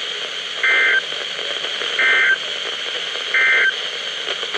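NOAA Weather Radio receiver sounding the Emergency Alert System End-of-Message signal: three short electronic data bursts, about 1.3 seconds apart, louder than the steady radio hiss. The bursts mark the close of the weekly test broadcast.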